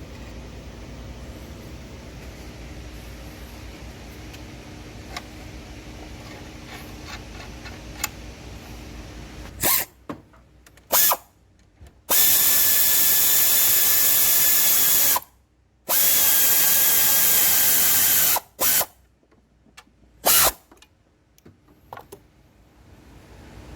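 A steady low hum, then a handheld power tool run in several short bursts and two longer runs of about three and two seconds, with a steady whine, as parts are worked on during a water pump, belt and idler bearing replacement.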